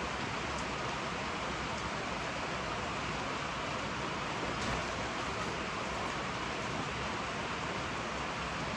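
Heavy rain pouring down: a steady, even hiss of falling rain with a few faint drop ticks.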